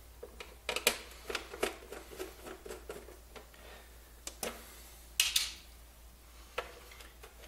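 Small clicks and taps of screws being lifted out of a Coleco Adam's plastic keyboard case and a screwdriver being handled, with a short scrape about five seconds in.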